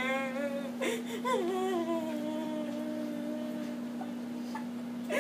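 A girl crying in long, drawn-out wails. One wail breaks off about a second in, and the next rises and then slides slowly down in pitch as it trails on. A steady low hum runs underneath.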